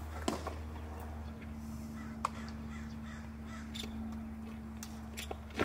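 Pitched baseball smacking into a catcher's leather mitt, sharply about a third of a second in and again at the end, with a fainter smack in between. A steady low hum runs underneath, joined by a steady higher tone a little over a second in.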